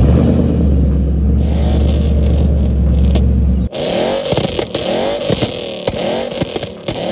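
Ford Mustang GT's 5.0 V8 through an aftermarket Borla ATAK exhaust. It first runs at a loud, steady, deep idle, which cuts off abruptly about three and a half seconds in. Then comes a run of quick throttle blips, the revs rising and falling several times a second, with sharp exhaust crackles.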